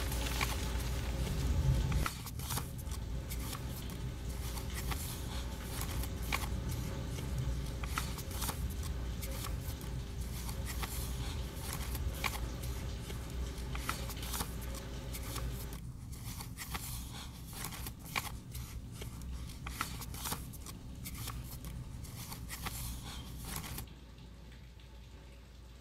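Graphite pencil scratching across sketch paper in quick, uneven strokes, over a low steady hum. It gets quieter near the end.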